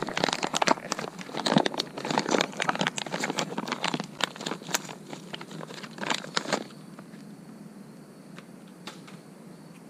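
Plastic parts packaging crinkling and tearing as it is handled and opened: a quick, irregular run of crackling rustles that stops about seven seconds in.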